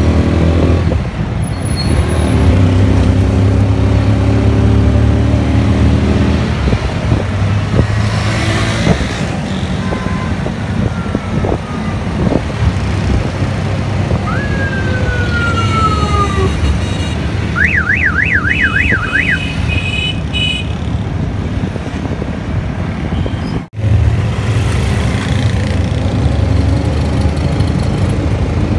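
Auto-rickshaw engine running with a low steady hum and the road noise of the ride through street traffic. Past the middle, an electronic siren-like tone falls in pitch, then warbles rapidly up and down about six times. The sound drops out for a moment near the end.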